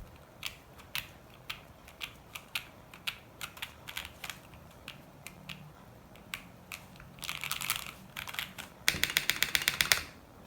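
Mechanical keyboard with stock Jwick Black linear switches, PBT keycaps and an FR4 plate in a gasket mount being typed on: single keystrokes about twice a second, then two short bursts of fast typing near the end.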